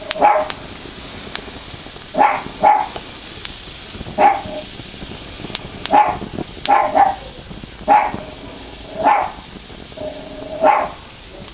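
A dog barking repeatedly, sometimes in quick pairs, roughly every one to two seconds. It is agitated by the noise of the fire-starting reaction.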